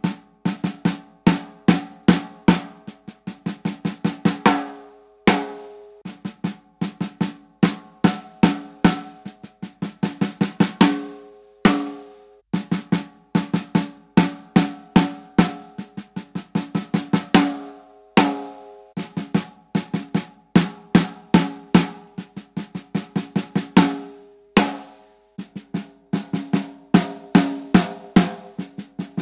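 DW snare drum played with sticks, the same short pattern repeated in phrases of about six seconds, each ending in a ringing accent. It is heard on a succession of Evans snare heads: single-ply clear G1 first, single-ply coated UV1 in the middle, and double-ply coated G2 near the end.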